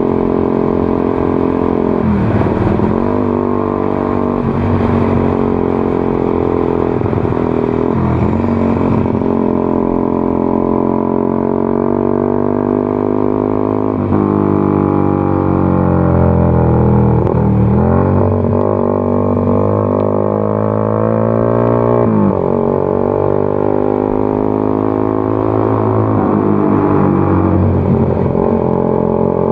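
Honda CBR150R single-cylinder engine running through an aftermarket Daytona exhaust while riding. Its pitch climbs steadily under acceleration and dips sharply at each of several gear changes.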